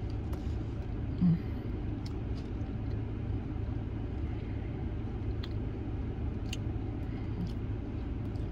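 Steady low rumble of a parked car running, heard inside the cabin. Over it come soft chewing and lip-smacking clicks, and a short contented "mm" about a second in.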